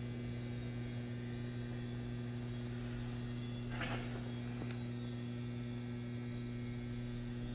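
Steady low electrical mains hum, with a brief faint rustle and a light click a little past halfway.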